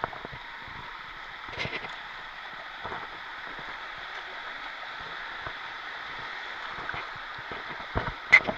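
Small waves washing in over shallow sand in a steady hiss, with soft splashes of feet wading through the surf.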